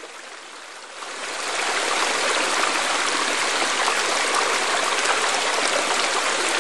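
Small rocky creek running and splashing over stones: a steady rush of water that grows louder about a second in.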